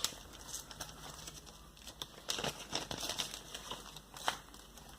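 Crinkling and crackling of a Beyblade sticker sheet and its packaging being handled, with a few sharper clicks about halfway through and near the end.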